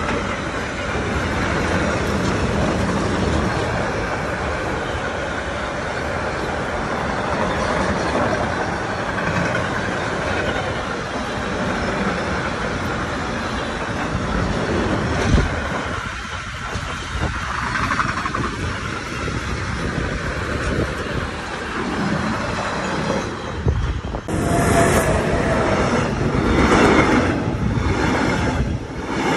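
Long freight train of car-carrier wagons rolling past close by, a steady rumble and rattle of wheels on rails. About 24 seconds in, this gives way to a double-deck regional passenger train passing, with a short high tone and regular wheel clatter.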